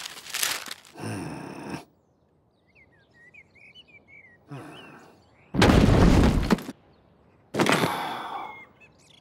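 Cartoon sound effects: short bursts of noise, a few bird chirps in a brief lull, then a loud heavy crash about six seconds in as a load of dark lumps is dumped in a heap. Another burst of noise follows near the end.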